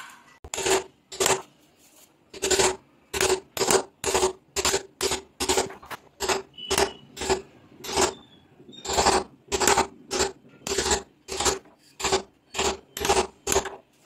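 Hammer striking a wood chisel in a steady series of blows, about two to three a second, each with a brief ring, with short pauses about two seconds in and near eight seconds in. This is chiselling out the latch mortise in the edge of a wooden door.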